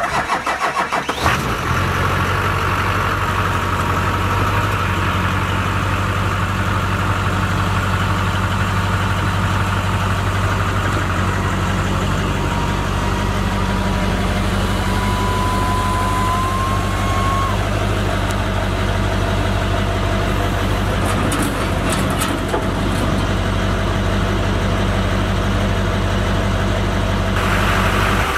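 2003 Chevrolet Silverado 3500 dump truck's engine idling steadily. It runs unevenly for about the first second, then settles into an even idle.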